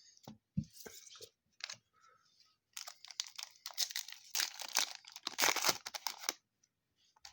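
A foil trading-card pack wrapper being crinkled and torn open, a dense crackling rustle over about three seconds in the middle, with a few soft knocks of card handling before it.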